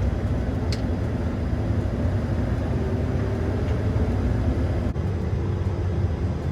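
Combine harvester running steadily, heard from inside the cab as a constant low engine and machine drone, with one short click about a second in.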